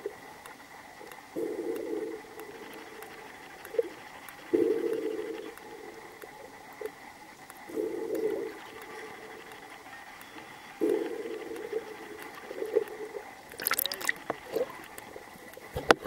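Underwater recording of sea water rushing past the camera in muffled surges about every three seconds, over a steady high whine, with a sharper splash near the end.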